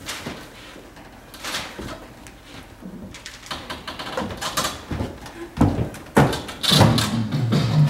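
Scattered knocks and thumps with rustling, two of them louder a little past the middle, and music beginning right at the end.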